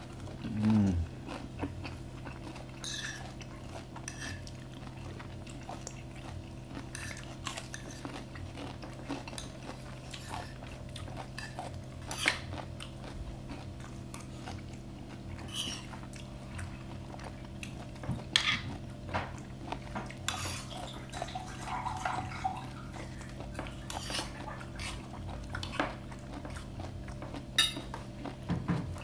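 Spoons and forks clinking and scraping against plates and bowls in scattered clicks, with chewing close to a clip-on microphone, over a steady low hum.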